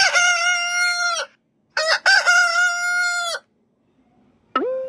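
Rooster crowing twice, each cock-a-doodle-doo held for about a second and a half, with a brief pitched sound starting near the end.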